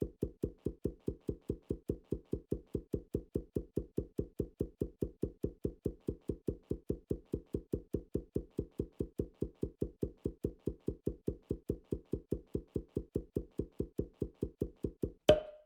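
A steady, evenly spaced dull knocking, about four knocks a second, ending with one louder knock near the end.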